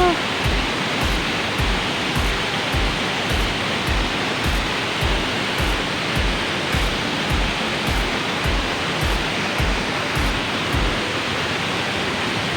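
Steady rush of a waterfall, with background music's deep drum beat thumping about twice a second over it.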